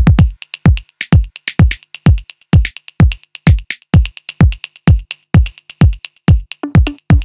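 Electronic dance music with a deep kick drum on every beat, about two beats a second, and crisp hi-hat ticks between.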